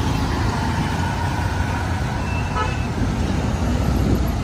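Busy street traffic: a steady engine rumble from passing cars and an auto-rickshaw, with a brief faint toot near the middle.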